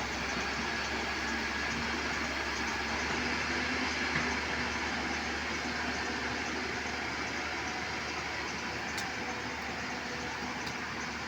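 Excavator's diesel engine running steadily, with no clear revving or change in pitch.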